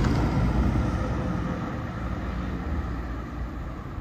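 Mazda MX-5 NC's power retractable hard top closing: its roof mechanism whirs steadily over a low rumble, slowly getting quieter.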